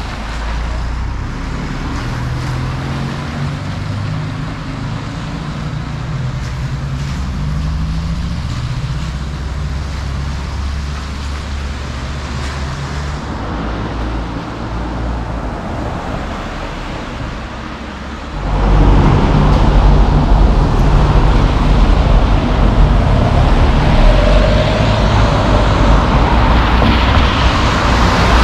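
Street traffic noise on wet city roads: a steady low rumble of passing cars, suddenly much louder and fuller about two-thirds of the way through.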